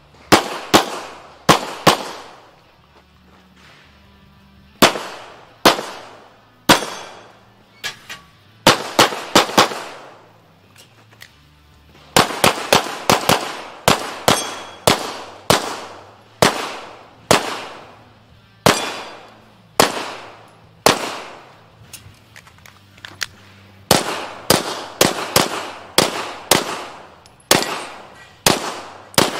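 Gunshots in fast strings, pairs and runs of rapid shots with short pauses between them, each shot followed by a brief echo. Background music with a low steady bass runs underneath.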